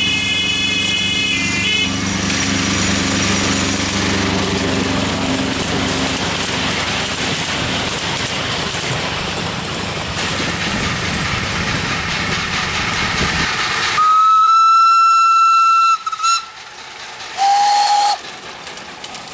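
Miniature steam locomotive's whistle: one loud, steady blast of about two seconds, a brief toot, then a shorter, lower-pitched whistle, over the running of the passing miniature train. A chord of steady tones sounds in the first two seconds.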